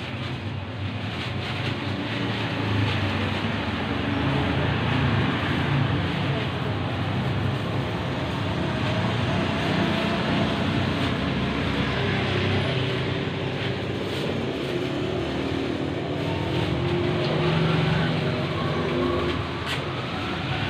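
A motor vehicle's engine running steadily under a constant rush of noise, its low drone wavering slightly in pitch and swelling a little near the end.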